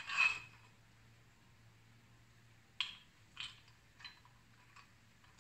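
Light knocks and clinks of the metal tube parts of an ab generator exercise frame being handled and fitted together by hand: a short scrape at the start, then four faint taps spread over about two seconds from roughly three seconds in.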